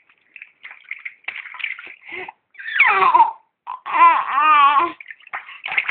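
A small child vocalizing in bath water: two long, high, wavering calls in the middle, with short splashing and water noises around them.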